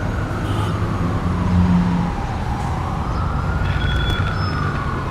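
A siren wailing slowly up and down over the steady rumble of road traffic.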